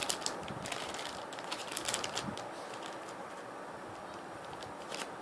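Plastic parts bag crinkling with scattered crackles as it is worked open by hand.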